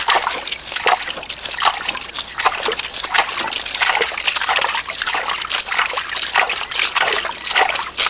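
Water thrown by hand into a small muddy hole, in quick, irregular splashes and slops.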